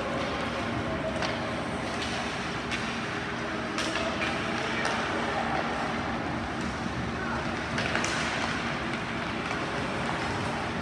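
Ice hockey game heard in the rink: a steady wash of skating and arena noise with faint voices, broken by a few sharp knocks of sticks, puck or boards.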